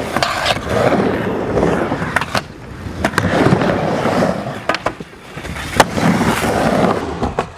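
Skateboard rolling back and forth on a wooden mini ramp, the wheel noise swelling and fading with each pass up and down the transitions. Several sharp clacks of the board striking the ramp cut in along the way.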